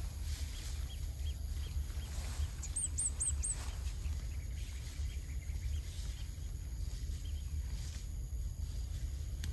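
Outdoor rural ambience over a steady low rumble, with a small bird giving four quick high chirps about three seconds in and fainter chirps scattered through; no cattle lowing.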